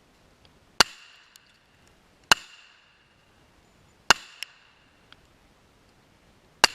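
KRISS Vector firing .45 ACP rounds one at a time at a steel wedge: four single shots, about one and a half to two and a half seconds apart, each with a short ringing tail. Fainter ticks follow some of the shots.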